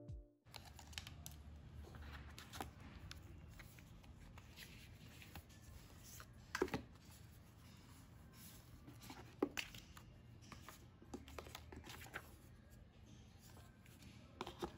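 Soft handling of MacBook Air packaging: paper leaflets and the cardboard box tray rustling and tapping, with a few sharper ticks.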